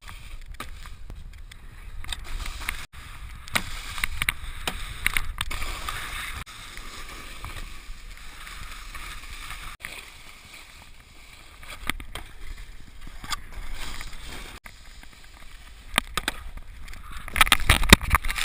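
Snowboard edges scraping and carving over packed snow, with wind rumbling on the camera microphone. Near the end comes a louder burst of scraping as the board digs in hard.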